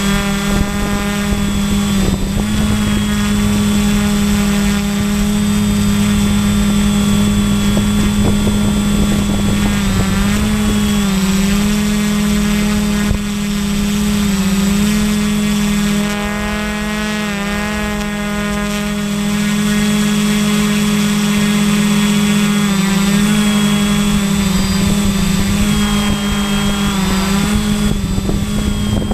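Electric motors and propellers of a remote-controlled camera drone, heard from the camera it carries: a steady buzzing whine whose pitch wavers and shifts several times as it manoeuvres.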